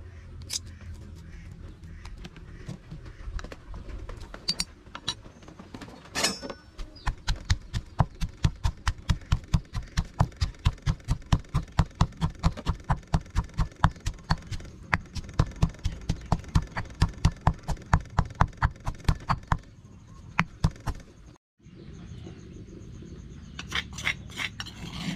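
Stone pestle pounding garlic in a heavy stone mortar: a long run of dull thuds in a fast, even rhythm, starting about seven seconds in and stopping about twenty seconds in. Before the pounding, a few light clicks and taps.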